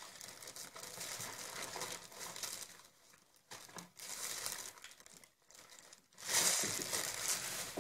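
Plastic snack packaging crinkling and rustling in uneven bursts as it is handled, loudest near the end.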